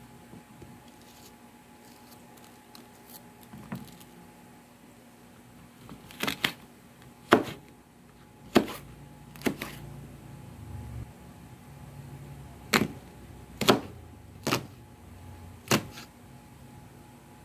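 Kitchen knife cutting a red bell pepper on a cutting board: about eight sharp knocks of the blade striking the board at uneven intervals in the second half, with only faint handling ticks before.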